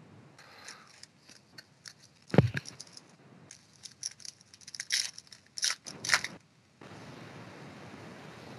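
A foil trading-card pack crinkling and tearing open in a series of sharp crackles, with one loud thump about two and a half seconds in. Near the end a steady faint hiss takes over.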